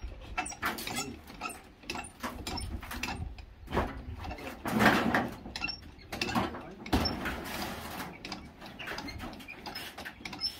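A red jack under a timber shed's bearer being pumped by its handle: irregular metal clicks and knocks, with a louder scrape about halfway through.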